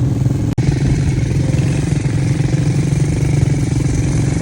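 ATV engine running steadily at a constant, low pitch, with the sound cutting out for an instant about half a second in.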